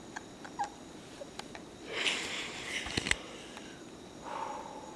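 Faint breathy sounds from a woman drenched in cold water and shivering: a long breathy exhale about two seconds in, a few small clicks, and another breath near the end.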